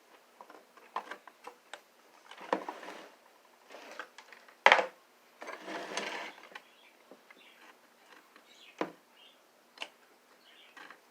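Pieces of a broken bird feeder being handled and tried in place: scattered small knocks, clicks and rustling, with one sharper knock about halfway through.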